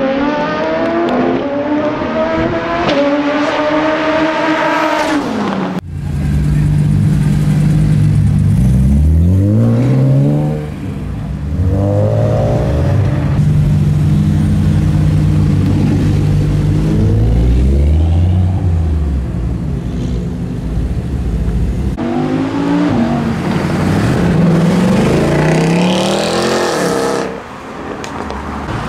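Performance car engines revving hard and accelerating away one after another, their pitch climbing and dropping back with each gear change. About six seconds in, the sound cuts abruptly to a deeper, louder engine note, and revving runs come and go after that.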